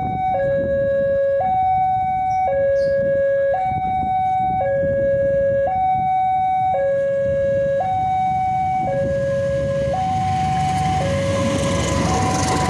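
Railway level-crossing warning alarm sounding two alternating tones, switching between a lower and a higher pitch about once a second, over a low rumble. Near the end a rising rush of noise joins in as the train approaches.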